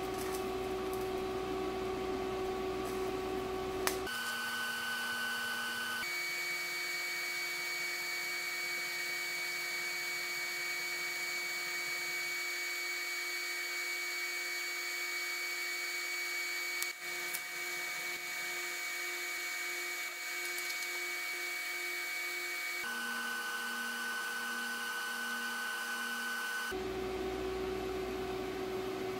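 TIG welder arc running steadily while welding beads on steel: an electrical hum of several steady high tones. The tone shifts abruptly to a different pitch a few times.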